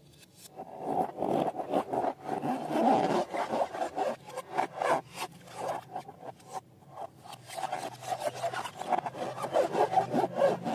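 Slime being worked and squeezed, making a continuous, irregular sticky crackling and squishing with many small pops.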